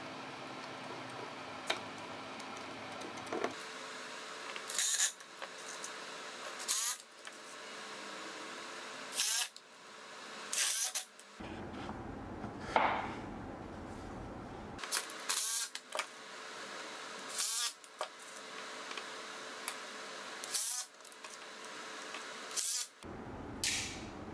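Cordless drill-driver run in about ten short bursts, each winding up and then down, as screws go into the plywood box's joints.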